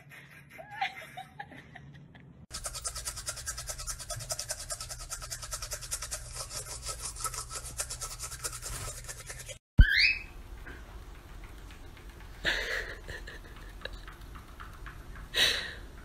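Fast, rhythmic scrubbing of a toothbrush on teeth for about seven seconds, beginning a couple of seconds in. Then comes a short rising whistle and two loud short calls from a cockatiel.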